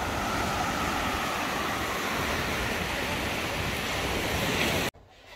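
Ocean surf washing onto a sandy beach, a steady rush that stops suddenly near the end.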